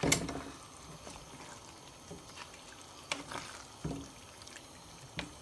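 Chicken and masala cooking in a karahi, with faint liquid bubbling and a few sharp knocks of a utensil against the pot, the loudest right at the start.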